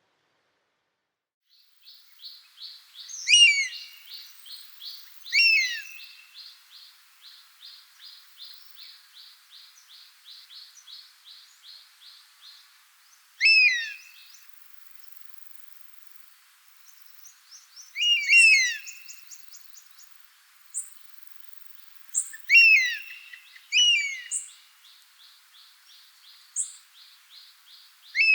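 Birds calling: loud, short, sharply falling call notes, often doubled, come every few seconds over a fast, even run of repeated high notes. The sound starts after about a second and a half of silence.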